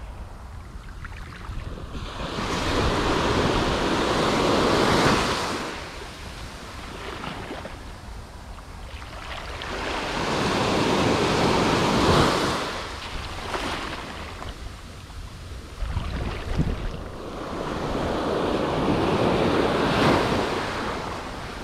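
Surf breaking on a sandy beach, three waves coming in one after another about eight seconds apart, each swelling and falling away, with wind rumbling on the microphone throughout.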